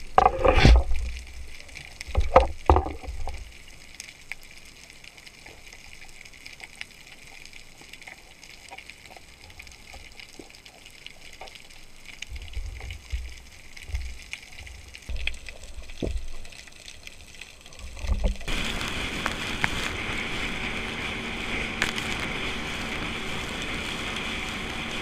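Muffled underwater sounds from a camera housing as a speargun and its line are handled: a few sharp knocks in the first three seconds, then low thuds and water movement. About eighteen seconds in, these give way to a steady motorboat engine running, with water rushing along an inflatable boat's hull.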